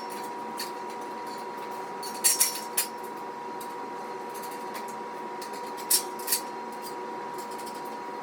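Sharp metallic clinks of steel squat-rack parts and hardware being handled during assembly: three about two seconds in and two more about six seconds in, over a steady hum.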